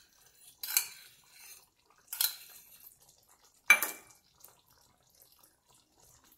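Cooking utensils clinking against a frying pan and a pot lid: three separate clinks about a second and a half apart, the last with a short ring.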